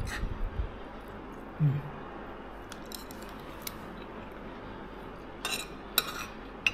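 Cutlery clinking against a plate several times while eating, in short sharp taps, with a brief low sound about two seconds in.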